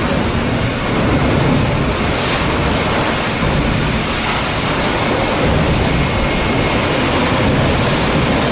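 A HELI forklift running steadily as it pushes a large steel pipe into a shipping container: a loud, even noise with a deep low end.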